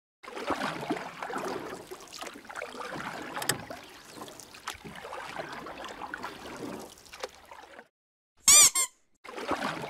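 Soapy water sloshing and hands rubbing lather into a wet dog's coat in a plastic tub. Near the end a rubber duck gives one short, high squeak, the loudest sound, and the sloshing then resumes.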